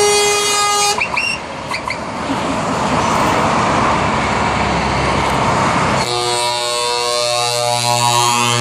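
Truck air horn holding a steady note that cuts off about a second in, then a couple of short toots, followed by the rush of heavy trucks and cars passing on the motorway below. About six seconds in, a steady chord of several horn tones starts and holds.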